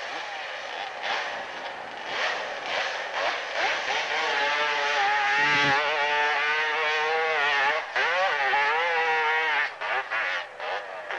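Hillclimb motorcycle engine running at high revs as the bike climbs a steep dirt slope, the note wobbling up and down. For several seconds in the middle the note holds high and strong, then it turns choppy near the end.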